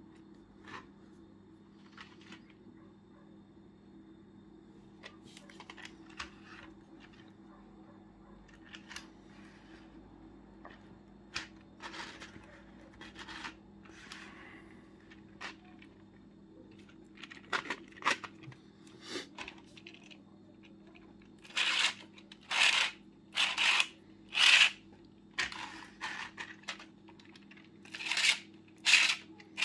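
Hard plastic parts of a 3D-printed tank model being handled: scattered light clicks and scrapes as the turret and hull are moved, then, about two-thirds in, a run of a dozen or so louder, short rasping scrapes.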